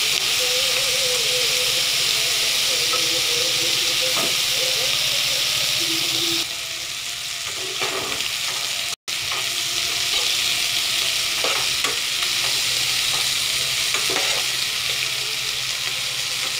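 Cut flat beans sizzling in hot oil in a kadai, with a metal spatula scraping and knocking against the pan now and then as they are stirred. The sizzle thins about six seconds in, and the sound drops out for an instant a few seconds later before the frying goes on.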